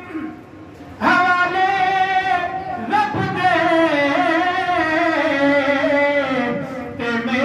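A man singing into a handheld microphone. His long held notes waver and glide in pitch. The singing comes back strongly about a second in, after a quieter start, and breaks briefly around three seconds in.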